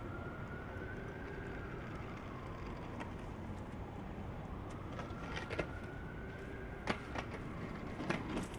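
City street traffic: a steady rumble of cars and trucks, with a faint whine that slowly rises and falls twice. A few sharp knocks come in the second half.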